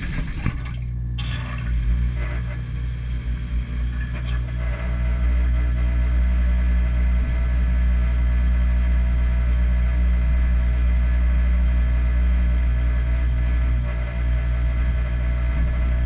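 Dishwasher starting up and running, heard from inside the tub: the wash pump comes on suddenly and settles within a couple of seconds into a steady low hum with a rushing noise over it.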